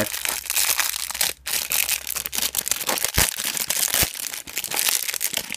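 Packaging being crinkled and torn by hand, a continuous rustle with a brief pause about a second and a half in and two dull thumps around three and four seconds in.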